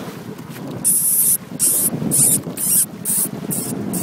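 Boat engine running with a steady low rumble, overlaid from about a second in by a string of short hissing bursts, roughly two a second.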